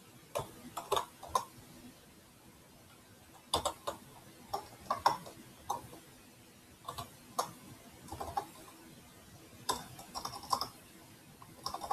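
Computer keyboard keys being pressed in short clusters of a few clicks each, with pauses of a second or two between them.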